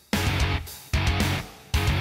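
Background rock music with guitar, in loud bursts that start abruptly about every second and fade between them.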